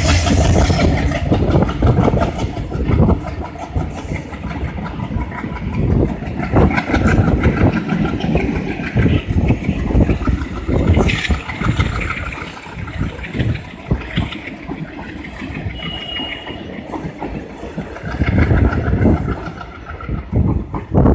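Passenger train rolling past behind a WDM3D diesel locomotive, its coach wheels clattering over the rail joints in a dense stream of knocks over a steady rumble.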